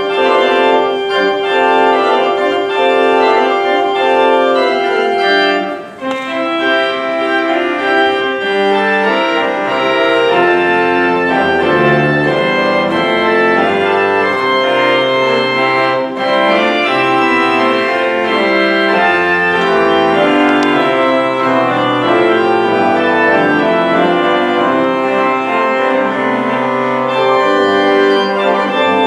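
Pipe organ playing a postlude. It holds one chord for about six seconds, breaks off briefly, then plays a moving passage over low pedal bass notes.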